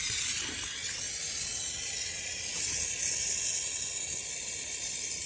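Gas brazing torch flame hissing steadily on a low, gentle setting.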